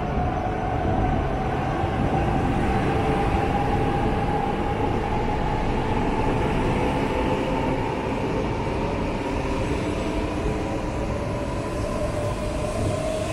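E4 series MAX double-decker Shinkansen pulling out of the station and gathering speed, its motors giving a whine that slowly rises in pitch over the steady rumble of the moving cars.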